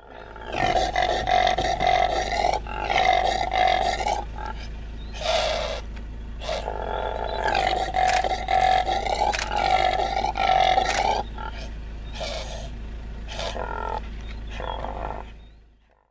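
Common impala ram calling: a long run of hoarse, rasping calls one after another, each under a second, with short breaks between groups.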